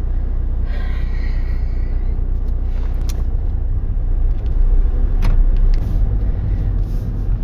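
Car cabin noise while driving: a steady low rumble of engine and road, with a couple of short clicks about three and five seconds in.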